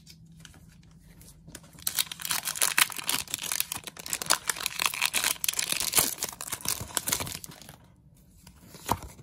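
Foil Pokémon booster-pack wrapper being torn open and crinkled: a dense crackling that starts about two seconds in and lasts about six seconds, with a single sharp click near the end.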